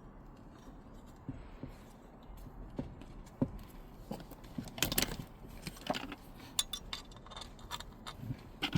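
Light metallic clicks, clinks and scrapes of small Torx screws and hand tools being handled. The clicks are sparse at first and come thicker and louder from about halfway through.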